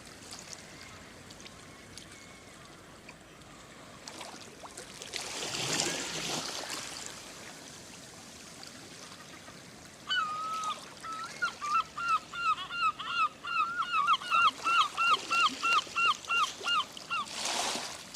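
A gull giving its long call: one drawn-out note, then a fast run of short repeated calls, about three a second, for some six seconds. Sea waves wash on the shore twice, once before the calls and once as they end.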